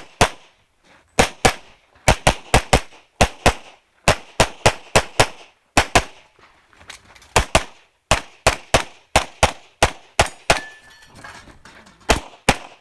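Glock 35 pistol in .40 S&W fired rapidly in quick pairs of shots, string after string, with short pauses between target arrays and a longer pause near the end before firing resumes.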